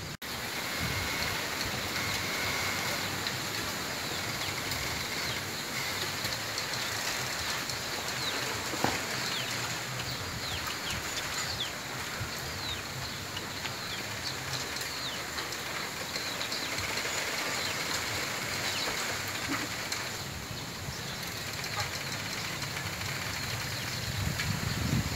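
Bamboo grove rustling in the wind: a steady hiss of moving leaves, with a few faint short high squeaks scattered through it and a single tick about nine seconds in.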